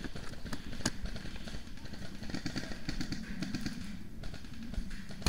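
Rustling of clothing and undergrowth as a player shifts position, with a sharp click about a second in and a louder one near the end.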